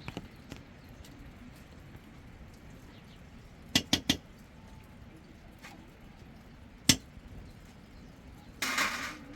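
Three sharp clicks or knocks in quick succession about four seconds in, a single sharp click about three seconds later, and a brief rustling burst near the end.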